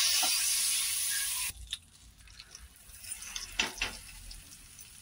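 Butter sizzling on a hot tawa, a loud hiss that cuts off abruptly about a second and a half in. After that only a faint sizzle remains, with a few soft knocks.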